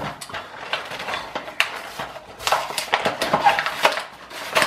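Toy packaging being handled, with irregular crinkling and clicking.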